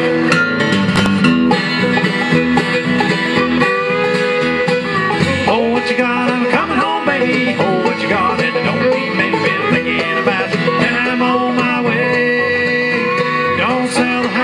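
Bluegrass band playing live: bowed fiddle, banjo, mandolin and acoustic guitar over a bass line, without vocals.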